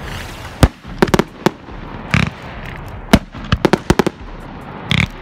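Aerial fireworks exploding in the night sky: more than a dozen sharp bangs, some single and some in quick clusters, with the loudest a little under a second in and about three seconds in.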